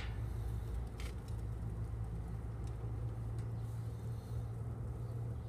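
Steady low mechanical hum of a CNC rebar bending machine running, with a couple of faint short clicks about a second in and again near three and a half seconds.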